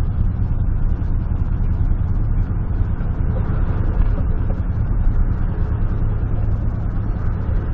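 1996 GMC truck's V8 engine running as the truck rolls slowly, a steady low rumble heard inside the cab.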